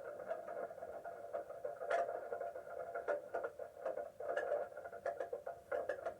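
Light rain falling, a steady patter with irregular sharp taps of individual drops.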